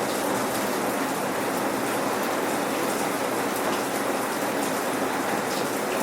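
Steady rain without thunder, the patter of drops on various surfaces, with small scattered drop ticks over an even hiss.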